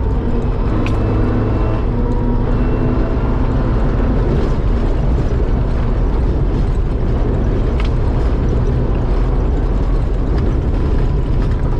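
Off-road Mitsubishi Pajero driving fast along a dirt track: steady engine drone over a dense low rumble from the tyres and chassis on rough ground.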